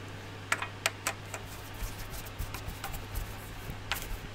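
Small sharp clicks and taps of crimped spade terminals, wires and a screwdriver being handled at a power supply's screw terminal block. A few clicks come in the first second or so, then softer taps, then two more near the end, over a steady low hum.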